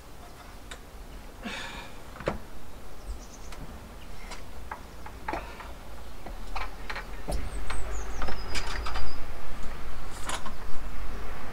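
Scattered light knocks and clanks from an aluminium ladder and a solar panel as someone climbs the ladder carrying the panel, with wind rumbling on the microphone, growing louder from about six seconds in.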